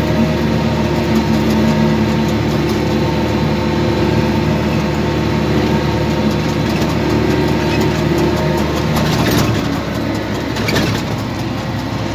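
Case 125 tractor engine running steadily under load, pulling a 44-disc harrow through the soil. It eases slightly about ten seconds in.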